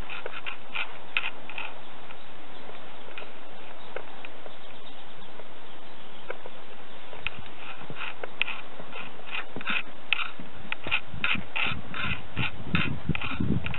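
Footsteps on a wooden boardwalk, a series of sharp knocks that come about three a second in the second half, with heavier, hollower thuds near the end, over a steady hiss.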